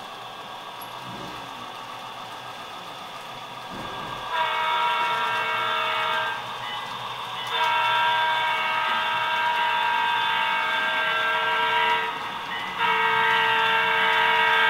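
Sound-equipped model diesel passenger locomotive sounding its multi-tone horn: three long blasts, about two seconds, four and a half seconds, and a third still sounding at the end, starting about four seconds in over a faint steady running hum.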